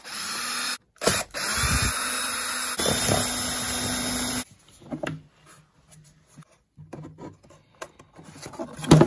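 Power drill with a socket bit running in two bursts, a short one and then a steady run of about three seconds, driving out the fasteners of a car's plastic air filter housing lid. Then scattered clicks and plastic handling as the lid is lifted, with a louder knock near the end.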